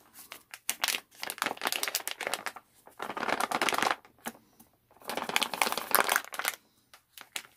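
Plastic microwave-rice pouch crinkling and rustling in bursts as gloved hands squeeze and knead it to work colonised grain spawn out of the bag.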